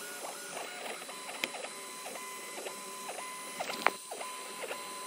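Easythreed K9 mini 3D printer's stepper motors whining as the print head moves, in short gliding tones about twice a second, with one sharp click about two-thirds of the way through.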